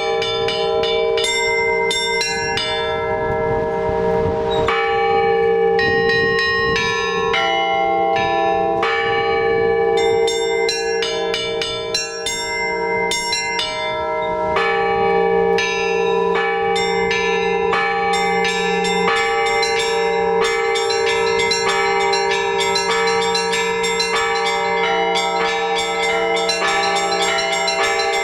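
Orthodox church bells rung together in a fast rhythmic peal: small high bells struck several times a second over the long-ringing hum of larger, deeper bells.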